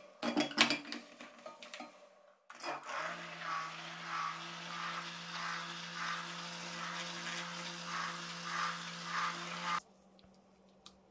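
Stick blender blending goat milk powder into melted soap oils in a glass jug. It starts with about two seconds of irregular clattering. Then the motor runs steadily for about seven seconds, with a swish repeating a little under twice a second, and cuts off suddenly near the end.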